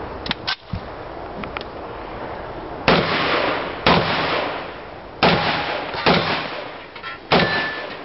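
Five shotgun shots spaced roughly a second apart, starting about three seconds in, each followed by a long echo off the berm. A few light clicks come about half a second in, and a short ring follows the last shot.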